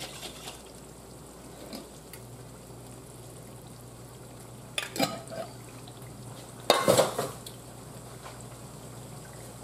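Tomato sauce sizzling faintly in a skillet on the stove over a steady low hum. Two short knocks, one about halfway through and a louder one about two seconds later.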